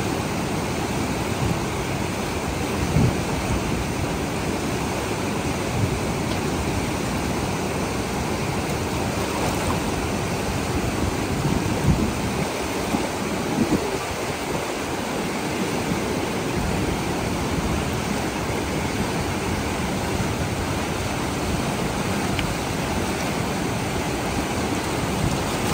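Fast mountain river rushing over rocks, a steady noise of white water, with a few brief louder sounds about three seconds in and around the middle.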